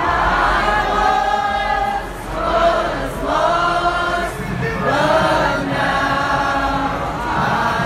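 A crowd of voices singing a Christian worship song together, in long held notes.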